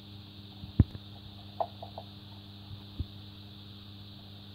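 A steady low hum with a few sharp knocks, the loudest about a second in and another near three seconds.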